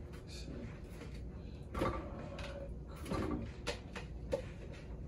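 Apple pieces being dropped and pushed into the plastic feed hopper of a Nama slow juicer, with a few short knocks and clatters of fruit against plastic.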